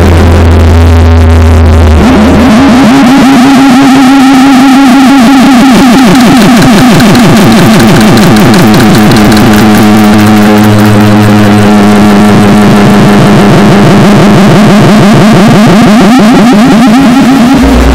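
Harsh noise music: a dense, distorted wall of noise at full level. A deep low drone drops out about two seconds in, leaving a fast, stuttering buzz, and comes back near the end.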